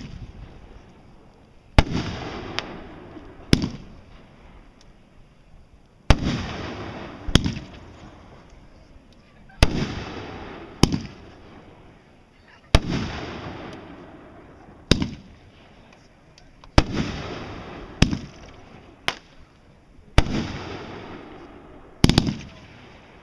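Aerial fireworks going off one after another: about fourteen sharp bangs, many in pairs a second or so apart, each trailing off into a fading rumble over a couple of seconds.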